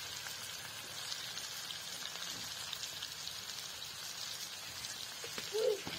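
Onions and tomatoes frying in oil in an aluminium pot, a steady sizzling hiss with faint fine crackles.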